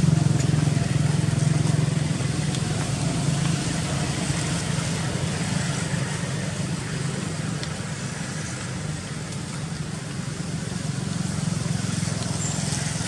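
A steady low engine drone, loudest at the start and easing off slowly.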